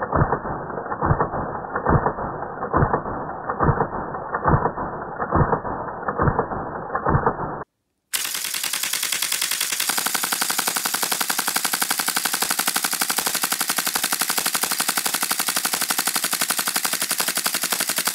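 The action of a 3D-printed Partisan-6 SF select-fire model cycling on full auto. For about seven and a half seconds, muffled shots come about once a second as slowed-down footage. After a short gap the action fires at real speed, a fast, even rattle of shots. About two seconds into that burst the rate goes up as the magazine runs empty and the action cycles dry, since this test model has no last-round disconnect.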